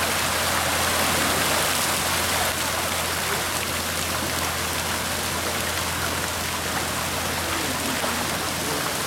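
Dense, steady splashing as a crowd of tilapia thrashes at the surface of a concrete raceway tank around a landing net, mixed with the spray of the tank's aerators, with a steady low hum underneath.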